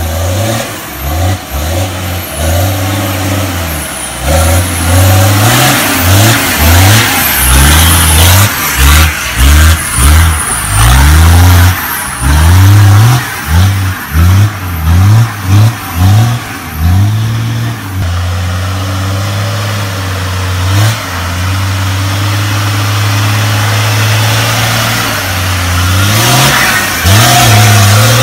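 Turbocharged Toyota Land Cruiser 60-series engine revved hard in many quick up-and-down bursts as the truck works through deep mud, then held at a steady drone for several seconds, revving up again near the end.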